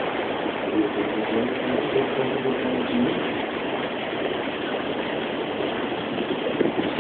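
Catamaran motoring along: a steady rush of water and wind with the engine running underneath.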